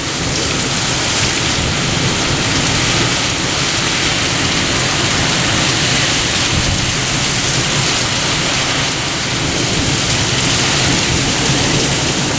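Heavy rain pouring down steadily in a severe thunderstorm, a loud, even hiss with no distinct thunderclaps.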